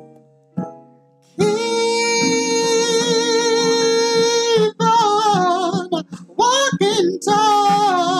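A song with acoustic guitar: a few single plucked guitar notes, then about a second and a half in a singer comes in on a long held note, followed by a run of bending, wavering notes over the guitar.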